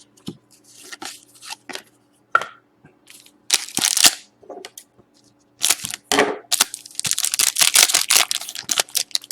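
Hockey card pack wrapper being torn open and crumpled, with cards handled and slid over one another: irregular rustling and crackling, loudest in short bursts a little past the middle and in a dense run near the end.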